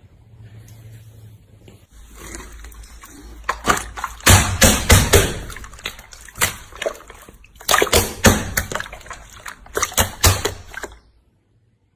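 Slime being squeezed and worked by hand: irregular wet squishing with many clicks, starting about two seconds in and cutting off suddenly about a second before the end.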